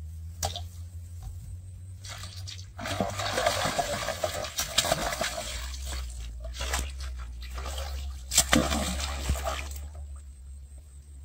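A hooked catfish thrashing at the surface of a shallow canal: churning splashes start about three seconds in, with sharper slaps of water near five and eight seconds, and die down near the end.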